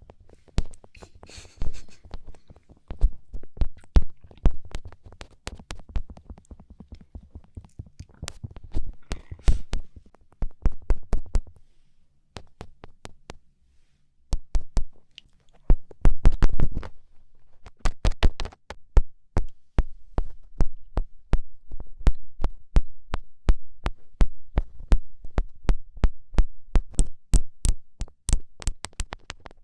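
Fingertips poking and tapping on a microphone: quick clicks with dull thuds beneath. There is a brief pause partway through, then a louder burst of thuds, then a fast, even run of taps.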